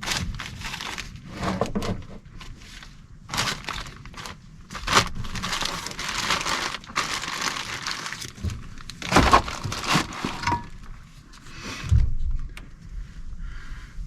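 Dry, thorny brush crackling and snapping as someone pushes through it on foot: uneven rustling bursts with a few sharper cracks.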